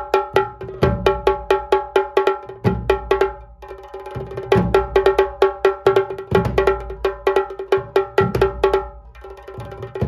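Tasha kettle drum played fast with two thin sticks: a rapid run of sharp, ringing strokes, with a deep dhol beat about every two seconds underneath. The playing eases briefly twice, a little before halfway and near the end.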